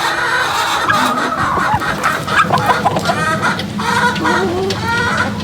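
Domestic chicken clucking: a run of short pitched calls, about two a second, over a steady low hum.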